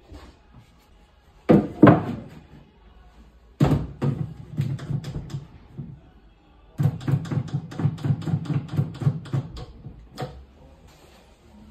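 Wooden knocks against hollow cabinet panels, then a long run of rapid clicking as a wooden brace is set and clamped across the tops of two kitchen base cabinets.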